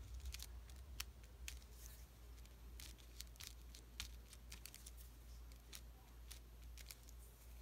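Faint handling of paper and card on a craft mat: scattered light ticks and rustles as the pieces are pressed and shifted, over a steady low hum.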